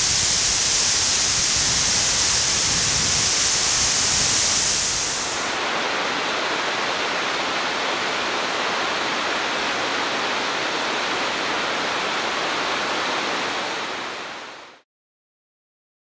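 Yasu-no-taki, a tall waterfall, rushing steadily with an even hiss of falling water. About five seconds in it becomes a little quieter and loses some of its high hiss, then it fades out shortly before the end.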